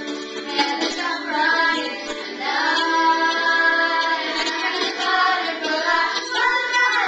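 Young girls singing a song together along with recorded backing music, holding long notes in the middle of the phrase.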